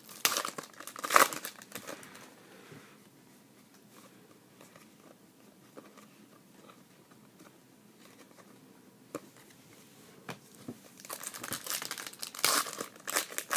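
Foil trading-card pack wrapper crinkling and tearing as it is handled and opened, in two bursts: one in the first two seconds and a longer one near the end. In between, only faint clicks of cards being flipped through.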